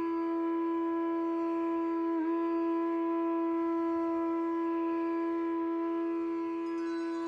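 A wind instrument holds one long, steady note in a piece of Indian classical music, with a brief dip in pitch about two seconds in.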